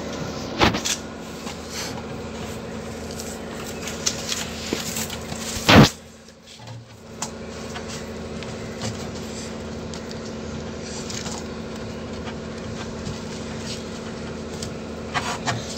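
Wet cement being pressed by hand onto the inside wall of a plastic drum: scattered scrapes and knocks of the plastic, with one loud thump about six seconds in, over a steady low hum.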